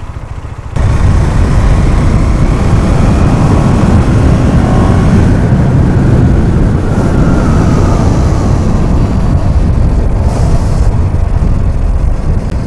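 Motorcycle being ridden at speed, its engine running under heavy low wind rumble on the microphone that comes in suddenly about a second in. The engine pitch rises as the bike speeds up, then falls as it slows.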